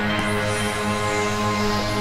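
Buchla and Eurorack modular synthesizer drone: a dense bed of sustained tones held steady. A brief high, airy sweep comes shortly after the start.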